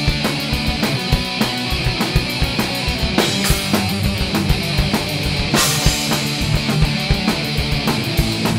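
Instrumental passage of a studio-recorded punk rock song: distorted electric guitars over a driving drum-kit beat, with cymbal crashes about three and five and a half seconds in.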